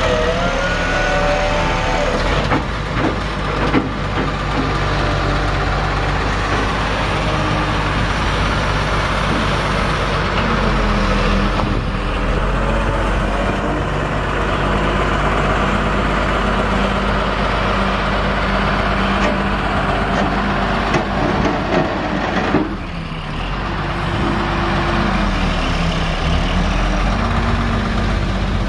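Cummins six-cylinder turbo diesel engine of a Gradall XL4100 wheeled excavator running steadily, with a few knocks and a brief drop in level near the end.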